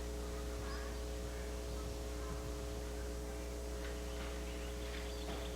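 Steady electrical hum with a few constant pitched tones over it and no distinct event.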